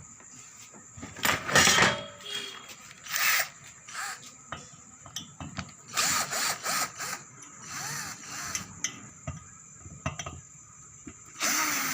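Electric screwdriver running in several short bursts, backing out the screws to open an amplifier's case.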